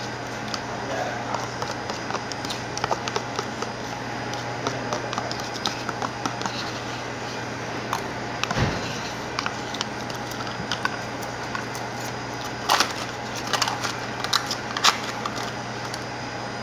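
Metal spoon clicking and scraping against a plastic yogurt tub while eating, the sharpest clicks coming near the end, with a soft low thump about eight seconds in. A steady low room hum runs underneath.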